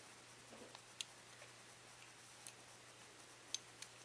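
Near silence with a few faint ticks as the shotgun's trigger assembly is handled and wiped with a cleaning patch.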